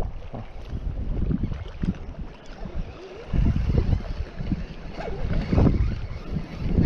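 Wind buffeting the microphone in gusts: a low, unpitched rush that swells and fades, with a brief lull about three seconds in.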